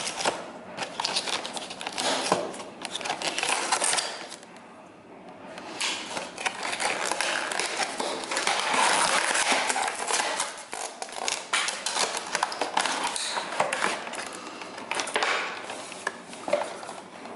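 Paper and cardboard packaging being handled and torn open by hand: continuous rustling, crinkling and scraping with scattered clicks and taps, easing off briefly about four to five seconds in.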